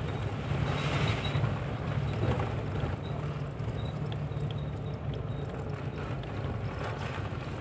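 Car driving slowly on a rough gravel road, heard from inside the cabin: a steady low engine drone with tyre and road rumble.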